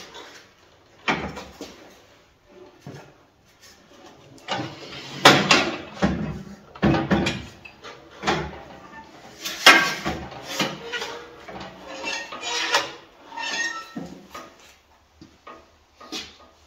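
Irregular knocks, clicks and short squeaks from a miter saw and its wheeled steel stand being handled and adjusted, with the saw's motor not running.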